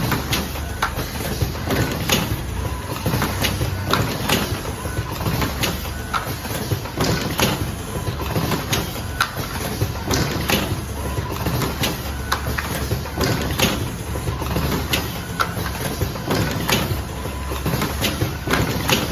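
Automatic cartoning machine running: repeated clacks and knocks from its box-forming and packing mechanism over a steady low motor hum.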